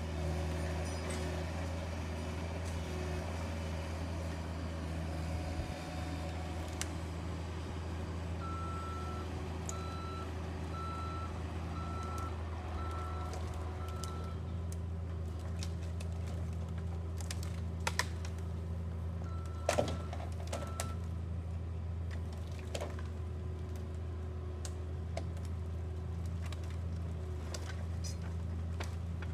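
Mini excavator's diesel engine running steadily while it loads brush with a grapple. A backup alarm beeps about once a second for several seconds, then twice more, and a few sharp cracks or knocks stand out near the middle.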